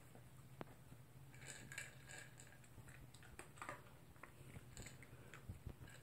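Faint, scattered crunches and clicks of a toy poodle chewing dry kibble.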